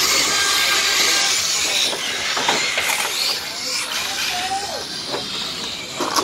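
Radio-controlled race trucks launching from the start and speeding away down the track: a loud hissing rush, strongest for about the first two seconds and then easing as they pull away.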